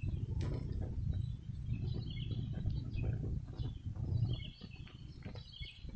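Small birds chirping now and then over a low, uneven rumble of wind buffeting the microphone.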